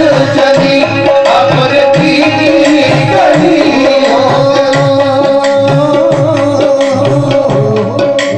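Live qawwali accompaniment: a harmonium holds a steady note under a moving melody while tabla keeps an even, continuous beat.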